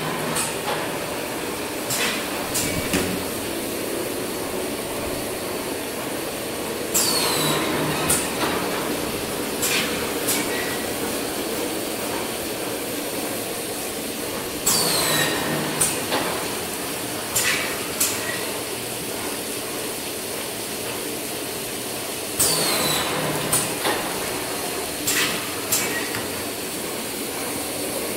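Automatic paper core tube winding and cutting machine running steadily. About every seven to eight seconds a short falling whine is followed by a few sharp knocks, the cycle of each length of tube being cut off and dropped.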